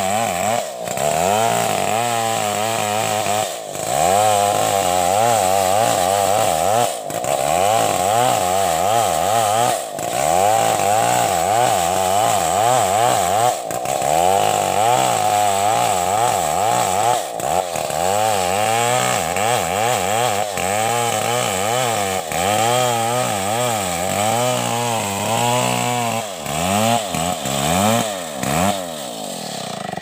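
Stihl 070 two-stroke chainsaw running at full throttle while ripping a log lengthwise, its engine pitch wavering up and down as the chain bites and frees in the wood, with brief dips every few seconds.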